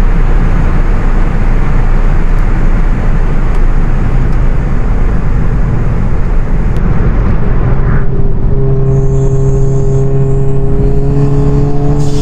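Tuned, decatted Volkswagen Golf GTI Performance's turbocharged 2.0-litre four-cylinder engine and exhaust, driven hard with a loud, broad rasp. About eight seconds in the rasp drops away to a steady, even drone with a faint high whine over it.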